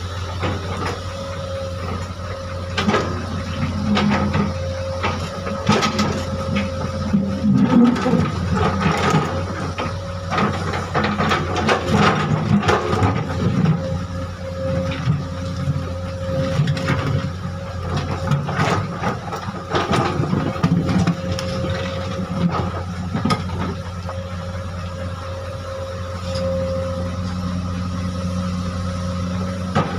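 Hydraulic excavator's diesel engine running steadily under load while it handles boulders, with a steady whine over the engine. Repeated knocks, clatters and scrapes of rock against the steel bucket come through most of the middle stretch, then ease off near the end.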